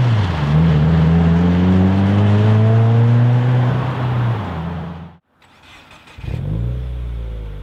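Subaru WRX's turbocharged 2.0-litre flat-four heard through an aftermarket exhaust, accelerating with its pitch climbing steadily for about four seconds, then cutting off suddenly; about a second later the engine is heard again, its pitch falling.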